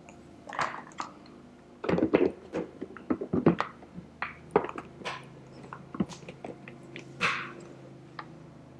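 Hands fitting and pressing down the lid on a Blendtec blender's plastic jar: a string of irregular clicks and knocks, loudest about two and three and a half seconds in, over a faint steady hum.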